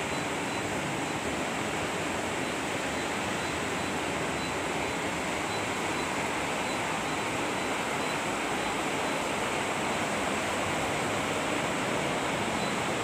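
Newly installed split air conditioner running on test, a steady rush of air from the unit's fan.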